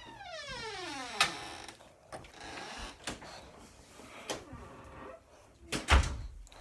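A squeaky creak that falls steadily in pitch over about a second, followed by scattered knocks and handling bumps, the loudest a little before the end.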